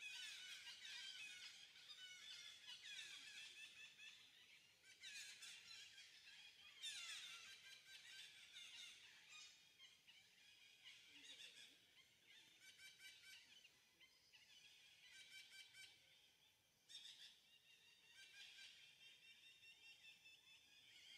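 Faint, high-pitched animal calls: many overlapping quick chirps and squeals that come and go in bursts of a second or two.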